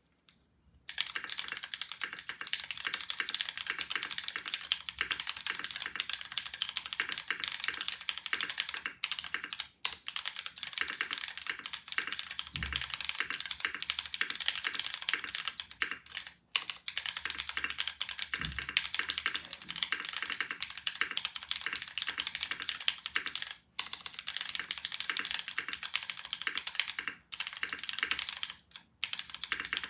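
Continuous fast typing on a dnworks Ryujin TKL custom mechanical keyboard with Krytox 205g0-lubed Cherry MX Brown Hyperglide tactile switches, a polycarbonate plate, an O-ring mount and DCS keycaps. The typing starts about a second in and pauses briefly a few times, with two low thuds near the middle.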